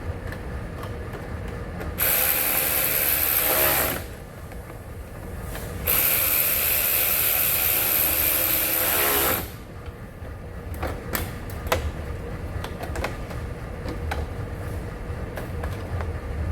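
Handheld power tool driving fasteners in two runs, about two and three and a half seconds long, each winding down in pitch as it is released, followed by scattered small clicks and knocks.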